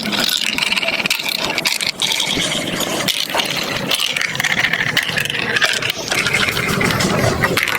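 Plastic marble run building-block set with marbles rolling and clattering along the plastic tracks: dense, continuous clicking and rattling.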